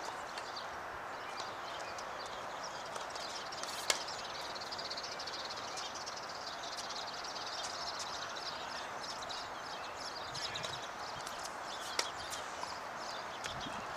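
Tennis balls struck by rackets on an outdoor hard court: a sharp pop about four seconds in and another near the end, with fainter ticks between. Underneath is steady outdoor background noise with high chirping.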